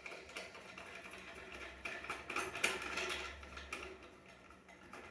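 Irregular clicking and scraping of plastic waste-fitting parts being handled and screwed together, busiest in the middle.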